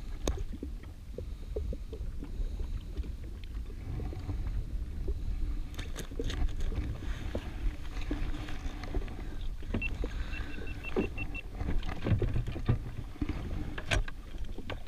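Low steady rumble of water and wind around an anchored jet ski, with scattered knocks and clicks from a landing net and fishing gear being handled against the hull. About ten seconds in comes a short run of rapid high ticks.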